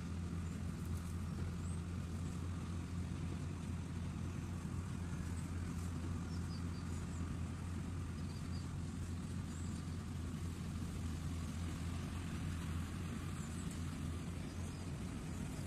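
Rice combine harvester's diesel engine running with a steady low drone while it cuts through the standing rice, with faint short high chirps now and then.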